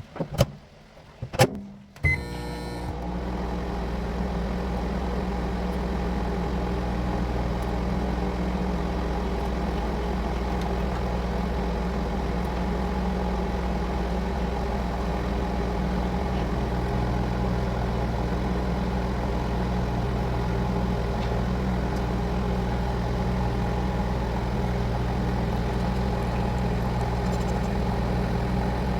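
Microwave oven being started: two clicks, a short beep about two seconds in, then the oven's steady running hum as it heats.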